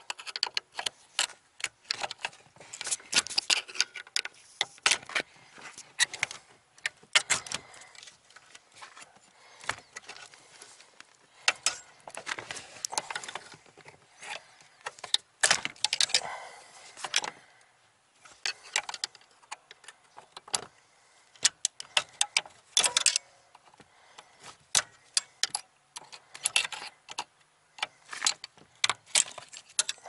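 Flat-blade screwdriver clicking and scraping against the small metal retaining clip on a brake pedal bracket as it is pried out. The clicks come sharp and irregular, in clusters.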